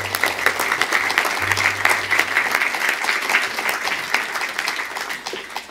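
Audience applauding: a dense run of many hand claps that fades out near the end.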